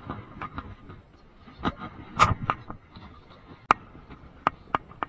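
A small fish released by hand into shallow water at the shore, with a brief splash about two seconds in, among several sharp taps and knocks from handling.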